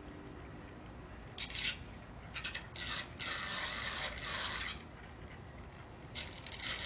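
Irregular bursts of scraping, rattling noise: short ones about a second and a half in, a longer run from about two and a half to nearly five seconds, and more near the end.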